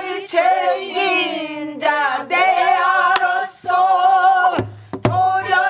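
Pansori singing, a woman's voice holding long wavering notes, with two strokes on the buk barrel drum, about three and five seconds in.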